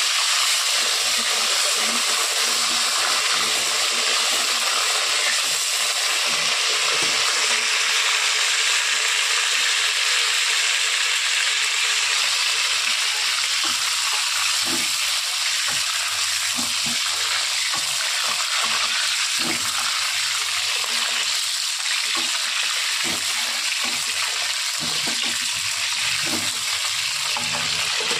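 Small whole slit green brinjals (eggplants) frying in hot oil in a kadhai, with a steady sizzle throughout. In the second half a wooden spatula turns them, adding soft scattered knocks against the pan.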